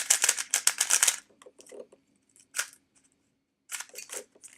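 Qiyi Sail 3x3 speedcube being turned by hand, its plastic layers clicking and clacking. There is a quick flurry of turns for about a second, then a single click, then a short burst of turns near the end.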